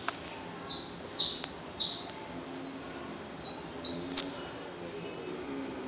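A bird chirping repeatedly: short, high chirps that each fall in pitch, coming in irregular bunches with short pauses between.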